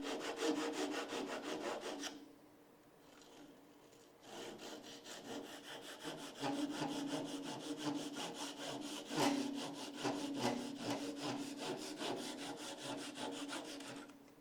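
Japanese pull saw (RAZORSAW) sawing with quick rasping strokes. The saw stops for about two seconds near the start, then saws steadily until the end, with a faint ringing tone from the blade or workpiece under the strokes.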